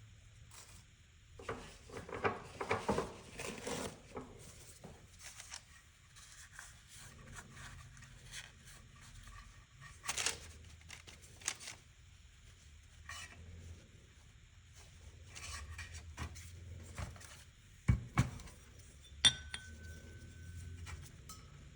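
Small metal parts and hand tools being handled and set down on a workbench, with scattered clicks and clinks. Two sharp knocks come near the end, then a metal part is struck and rings briefly.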